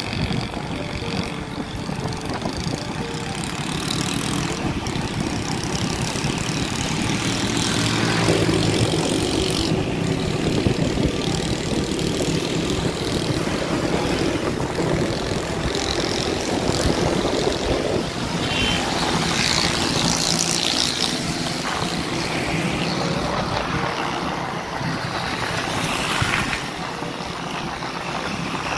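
Moving car: steady engine hum with tyre and wind noise, and louder rushes of passing traffic a few times.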